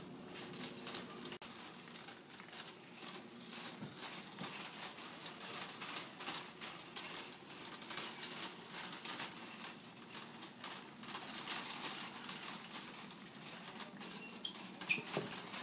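Shopping cart rattling and clicking in quick, irregular ticks as it is pushed along a hard store floor.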